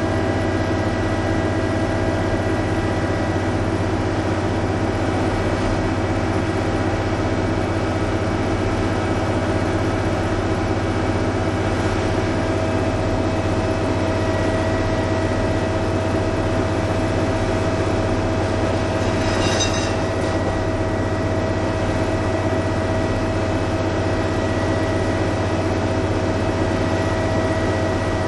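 NS DE-II diesel-electric railcar 186 running steadily: a deep droning hum with a steady buzzing whine over it. There is a brief crackle about two-thirds of the way through.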